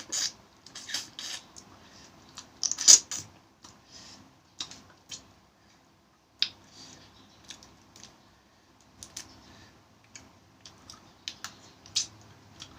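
Crab shell and legs being cracked and picked apart by hand: irregular sharp cracks and clicks, the loudest about three seconds in.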